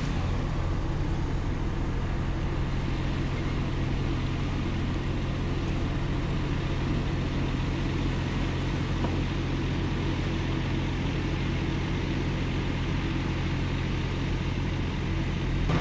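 A motor vehicle running with a steady low engine-and-road hum that stays even throughout.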